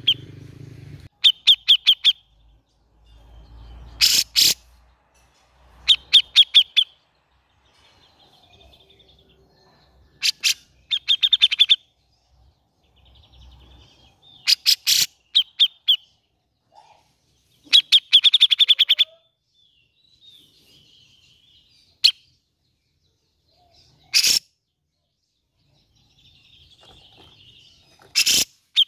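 Cucak jenggot (grey-cheeked bulbul) calling in loud bursts of rapid chattering notes. Each burst lasts about a second, and they come every two to four seconds with short quiet gaps; a few calls are sharper and harsher than the rest.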